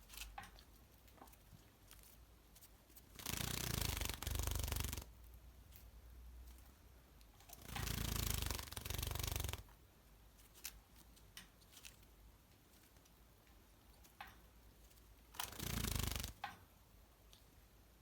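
Java sparrow splashing in a shallow water bath: three splashing bouts of one to two seconds each, with faint light taps in between.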